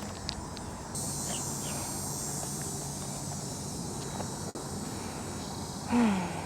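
Insects buzzing: a steady, high buzz that starts abruptly about a second in and holds for several seconds.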